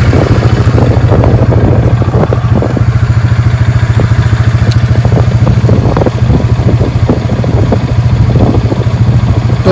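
Farm motorbike engine running steadily with a low, even drone, and a few rattles along the way.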